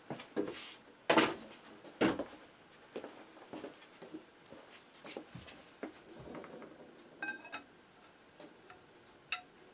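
Scattered knocks and clicks of metal gun parts being handled on a carpeted workbench: a suppressor and a threaded stainless rifle barrel picked up and set against each other. The loudest knock comes a little over a second in, another at about two seconds, and a brief ring sounds around seven seconds in.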